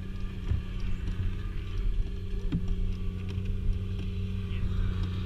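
Plastic whitewater kayak hull sliding down a packed-snow slope: a steady low rumble with a couple of light knocks.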